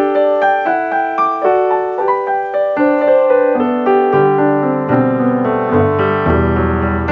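Background piano music: a steady run of melody notes, with lower bass notes joining about four seconds in.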